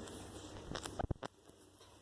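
A few light, sharp taps close together about a second in, with a quiet room around them.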